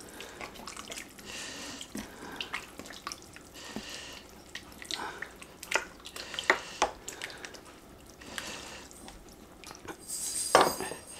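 Wooden spoon stirring liquid chili ingredients (broth, whole canned tomatoes, kidney beans, onion) in a slow-cooker crock: wet sloshing with irregular soft clicks of the spoon against the pot, and one louder knock near the end.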